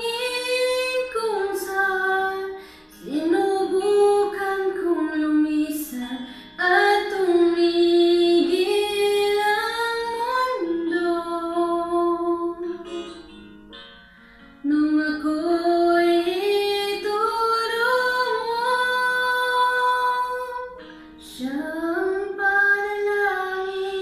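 A woman singing in long held notes, phrase after phrase, with short breaks between lines and a longer pause a little past the middle.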